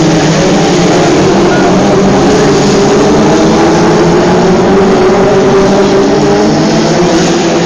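A pack of BriSCA F2 stock cars racing on an oval, several engines running hard at once with overlapping pitches that rise and fall as the cars pass. The sound is loud and continuous.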